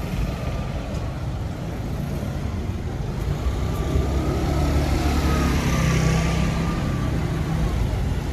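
Slow street traffic of cars, taxis and motorcycles passing close by on a wet cobbled street, a steady rumble of engines and tyres that grows louder about halfway through.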